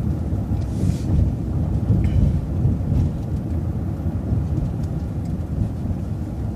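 City bus driving along a street, a steady low rumble of engine and road noise heard from inside the bus, with a few faint rattles.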